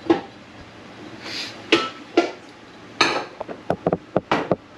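Kitchen utensils and pans being handled: scattered clinks and knocks, a few spread out at first and then a quick run of taps near the end.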